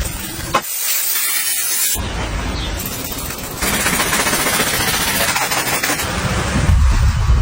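Pressure washer jet spraying, a loud rushing hiss of water striking a surface, with abrupt changes in character about half a second in, at two seconds and near the middle as the clip cuts between shots.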